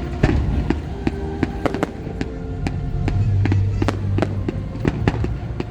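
Fireworks going off in many sharp, irregular pops and cracks, several a second, with music playing underneath.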